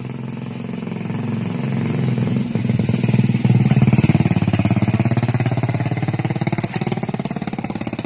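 A small engine running close by, picking up speed over the first few seconds and then slowly winding down.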